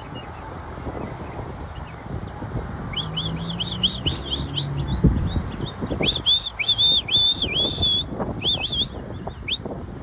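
Northern mockingbird singing: quick high phrases, each repeated several times in a row before the next, starting about three seconds in and most sustained around six to eight seconds. A low background rumble runs underneath.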